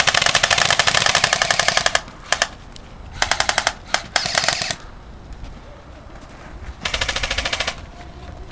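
Airsoft rifle firing on full auto in rapid bursts. A long burst of about two seconds comes first, then a few short bursts and single shots between about two and five seconds in, and another burst near the end.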